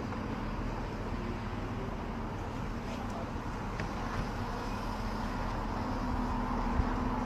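Steady low vehicle rumble with a few faint clicks.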